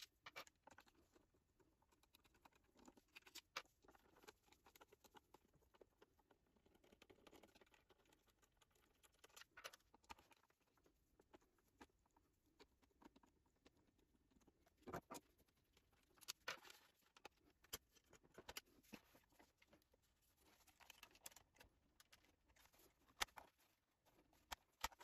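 Near silence with faint, scattered clicks and taps of a screwdriver and screws being worked on the iMac G4's plastic base, a few of them a little louder.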